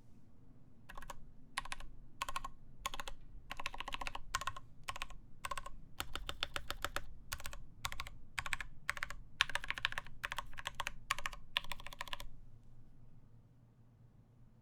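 Typing on a mechanical keyboard with lubed Tealios linear switches on a full steel plate, with POM keycaps (Norbatouch case on a CoolerMaster Masterkeys Pro S). Keystrokes come in quick runs, starting about a second in and stopping a couple of seconds before the end.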